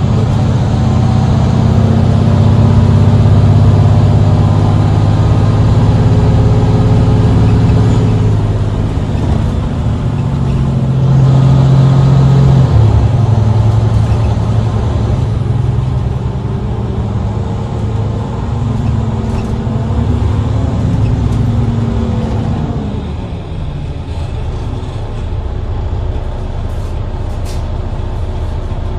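Mercedes-Benz Citaro C2 city bus's diesel engine pulling hard under heavy throttle, with a sharp step in the engine note about 13 seconds in. It then runs on more steadily, and its pitch falls away around 22–24 seconds in as the load comes off.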